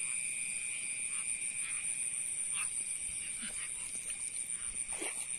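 Night chorus of insects and frogs: two steady high-pitched drones throughout, with short calls scattered every second or so, one sliding down in pitch near the end.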